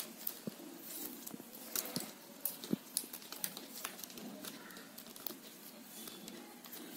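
Stiff plastic basket-weaving strands clicking and rustling as fingers loop them and pull a knot tight, in many small, irregular ticks.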